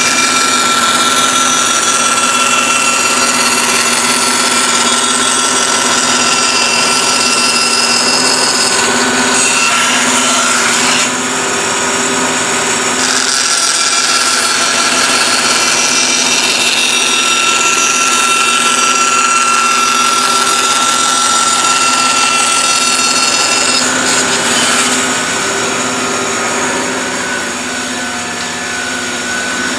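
A power tool running steadily while cutting wood, with small dips in level about a third of the way in and again near the end.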